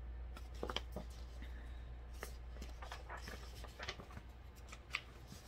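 Hardcover picture book being handled and its pages turned: scattered light paper rustles and soft clicks and taps, over a low steady hum.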